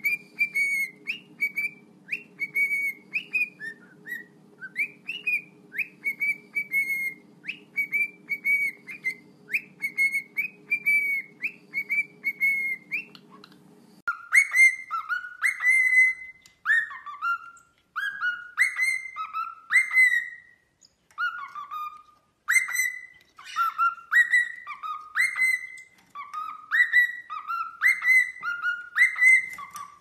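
Cockatiel whistling its song: a steady run of short whistled phrases, each a quick up-and-down glide. About halfway through, a low steady hum underneath drops out and the phrases change to a lower, swooping pattern.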